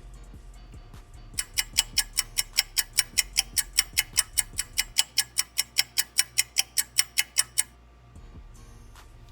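Fast, even ticking, about five ticks a second, like a clock or countdown-timer sound effect, over a low steady music bed. The ticking starts just over a second in and stops about three-quarters of the way through.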